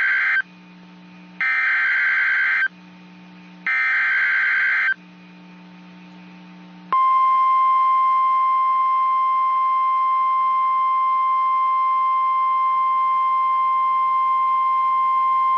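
NOAA Weather Radio emergency alert signal: the end of one burst of warbling digital data tones (the SAME header) and two more bursts about a second long, then the steady 1050 Hz warning alarm tone, one loud unbroken high tone from about seven seconds in. It signals that a new warning is about to be read.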